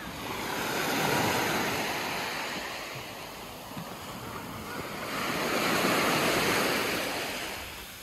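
Small sea waves washing up onto a shore of sand and fine shingle and drawing back, in two surges: one about a second in and a longer one around the middle to near the end.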